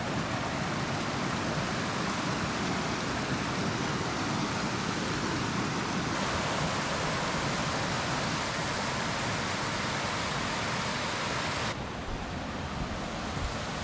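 Shallow mountain creek running fast over stones close by, a steady rushing of water. About two seconds before the end it changes suddenly to a softer, duller rush.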